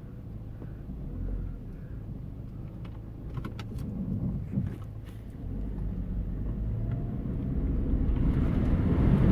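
Car running, heard from inside the cabin as it drives forward on a dirt road, growing louder from about halfway through as it speeds up. Near the end, water splashes under the car as it drives into a flooded stretch of the road.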